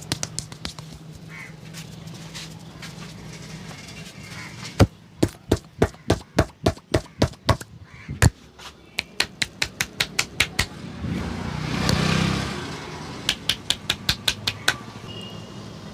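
Rapid runs of sharp hand slaps, about three a second, from a barber's hands tapping and percussing during a head and body massage. A short swell of rustling noise comes about three-quarters of the way through.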